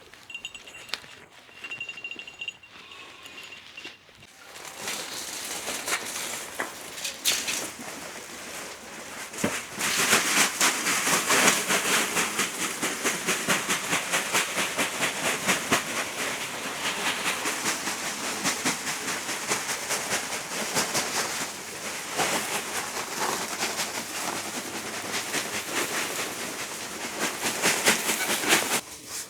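Meat sizzling and crackling in a hot sac pan over a wood fire. The sizzle starts about four seconds in and grows louder about ten seconds in.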